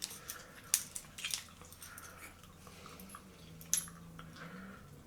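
Light clicks, taps and rubbing of small metal parts being handled: a copper shim washer fitted onto a lightsaber hilt section as the parts are put together. Two sharper clicks stand out, one near the start and one past the middle.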